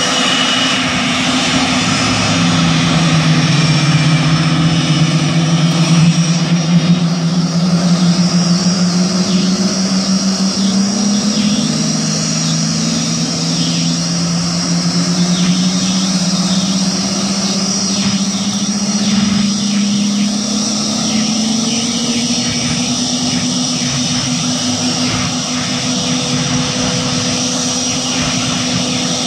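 Blue Angels F/A-18 jet engines running on the ground during engine start-up, a steady high whine over a low drone that rises in pitch several times as the engines spool up.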